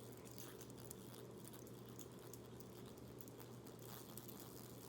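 Near silence: a steady low hum with faint scattered small clicks from a fidget toy being spun and handled with a finger.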